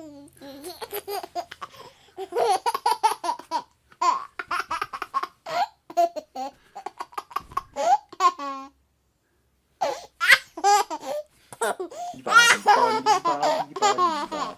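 A baby laughing in short, rapid bursts of giggles, with a break of about a second of silence a little past the middle.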